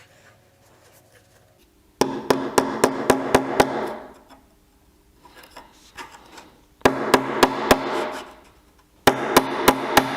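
Rapid, regular sharp knocks, about four a second, in three bursts that start abruptly, over a steady low hum.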